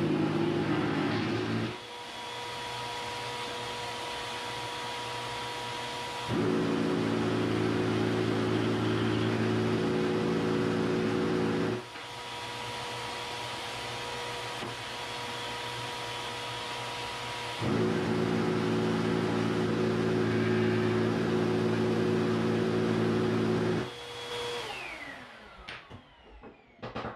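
Shop vacuum running steadily through its hose. Three times it grows louder and deeper for about five or six seconds at a stretch, then drops back. Near the end it switches off and spins down with a falling whine, followed by a few light clicks.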